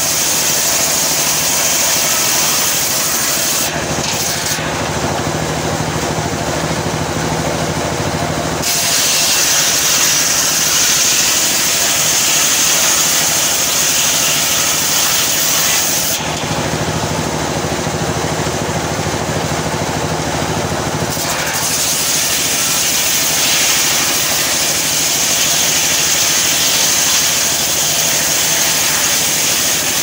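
Circular sawmill blade ripping gempol wood lengthwise into boards: a loud, steady whine and hiss of the saw in the cut. The highest part of the hiss thins out twice, about four to nine seconds in and again from about sixteen to twenty-one seconds.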